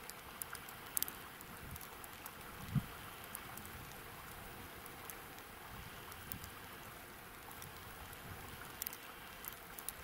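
Falling snow or sleet outdoors: a steady faint hiss with scattered light ticks of flakes landing, and one soft low thump about three seconds in.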